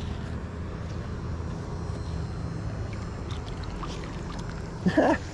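Steady low rushing of water over a waterfall and small dam. Near the end comes one short, sharp sound.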